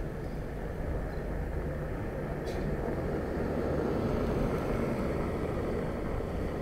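Steady low rumble of wind and road noise while riding a bicycle, swelling a little in the middle, with one faint click.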